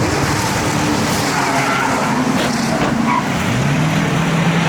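Ford Crown Victoria V8 race cars running hard on an oval track, with engine and tyre noise together. About three and a half seconds in, one engine note rises and then holds steady.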